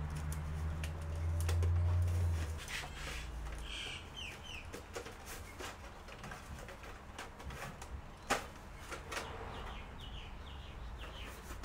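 Birds chirping, with short falling chirps twice, among scattered sharp clicks. A low hum stops about two and a half seconds in.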